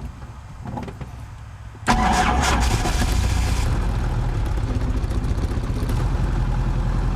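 Helicopter engine start: after a brief lull, the starter and engine come in suddenly and loudly about two seconds in, then keep turning with a steady, rapid low pulsing. This is a start attempt on an engine that is hard to start.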